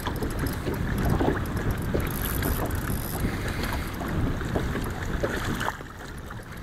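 Wind buffeting the microphone, with small waves lapping and slapping against a boat's hull.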